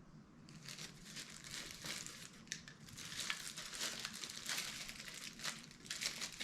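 Packaging crinkling and rustling as it is handled, in quick irregular bursts.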